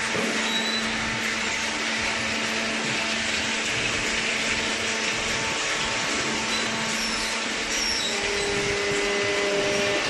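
Steady whirring drone of baling machinery running, with a constant low hum; a second, higher hum joins about eight seconds in.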